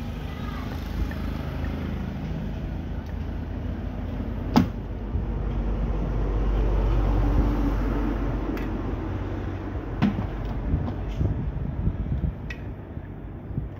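Scattered clicks and knocks of parts being handled as the impeller is worked off a small water pump's motor shaft and set down on the bench, over a steady low rumble that swells about halfway through.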